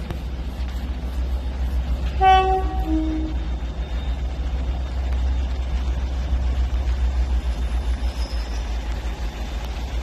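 Approaching train's two-tone horn sounded once, about two seconds in: a higher note then a lower one, together lasting about a second, over a steady low rumble.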